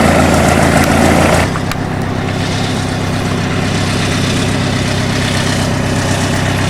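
An engine idling steadily. About a second and a half in, the louder, brighter noise over it drops suddenly, with a faint click, and the sound turns duller while the idle carries on.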